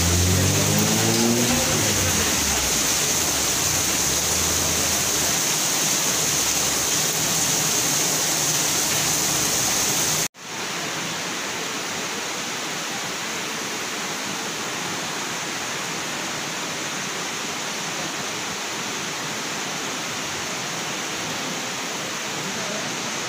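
Steady, even background hiss with a low droning tone in the first few seconds. The sound cuts out abruptly about ten seconds in and returns as a quieter, even hiss.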